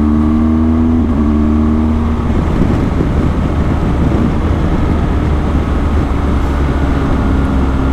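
BMW GS motorcycle engine running at road speed under a deep wind rumble on the onboard microphone. A steady engine tone for the first two seconds or so, then a rougher, grainier sound.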